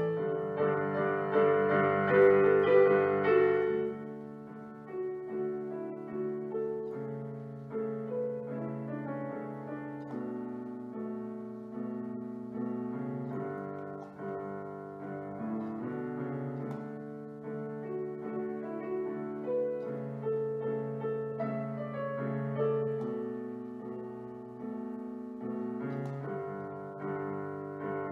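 Solo piano piece played on a digital piano: a melody over a moving bass line, louder for the first four seconds, then softer and even.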